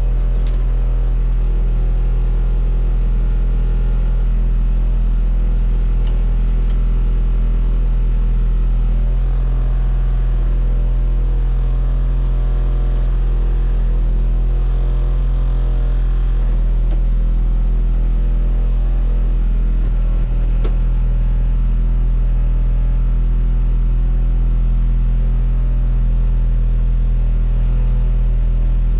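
Race car engine idling steadily, heard from inside the stripped cabin, with an even low hum and no revving.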